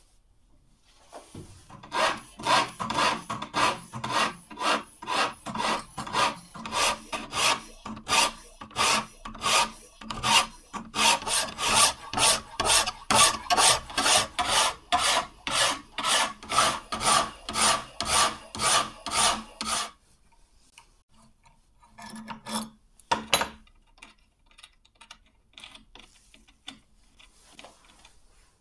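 A hand file guided on a rod in a bevel-filing jig, stroked back and forth over a steel knife blade at about two strokes a second. The strokes stop suddenly about two-thirds of the way through, followed by a few brief knocks.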